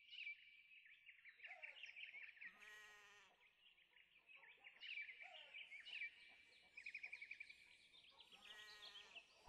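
Faint animal calls: many short high chirps throughout, with two longer bleat-like calls, one about three seconds in and one near the end.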